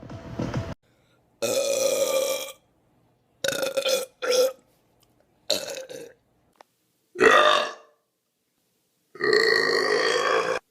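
A series of loud human belches, about six or seven separate ones of varying length, cut apart by dead-silent gaps; the longest, about a second and a half, comes near the end.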